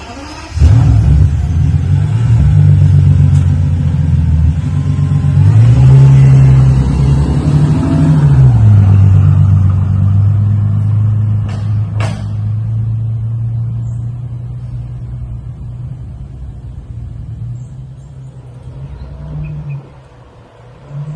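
Bentley Continental GT Speed's 6.0-litre twin-turbo W12 engine running. It comes in loud just after the start, revs up and back down about six seconds in, then settles to a steady lower note that grows fainter over the last several seconds. Two sharp clicks come about twelve seconds in.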